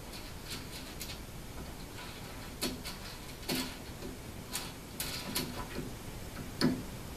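Irregular small metallic clicks and light knocks from an aluminium ball-screw end plate and its bolts being fitted by hand against an aluminium extrusion frame, about a dozen in all, the loudest near the end.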